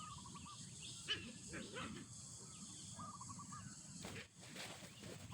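Animal calls: a short run of wavering notes heard twice, and one sharp, louder call about a second in, over a faint outdoor hum.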